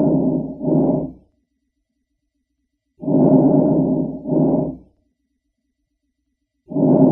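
Normal vesicular breath sounds heard through a stethoscope over the chest: a soft rushing on each breath, the longer inspiration followed at once by a short expiration, repeating about every three and a half seconds. This is the normal breathing sound heard over most of the lung fields.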